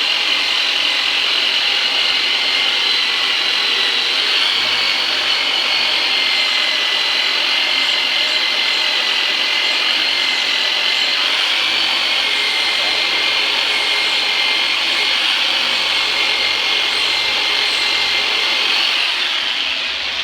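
The Turbinator, a very noisy chiropractic treatment machine, running steadily with a high whine. Its pitch sags a little midway, and it stops shortly before the end.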